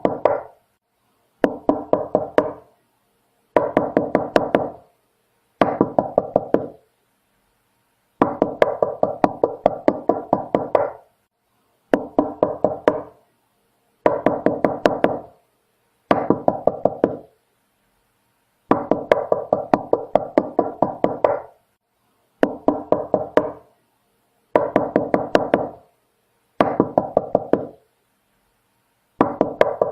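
Knocking on a door: quick runs of knocks, about four a second, in bursts lasting one to three seconds, with short silences between bursts.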